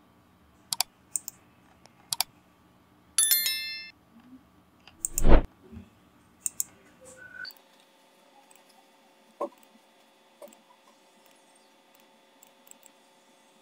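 Computer mouse clicks, a dozen or so scattered sharp clicks, with a brief buzzy click about three seconds in and one louder low thump about five seconds in.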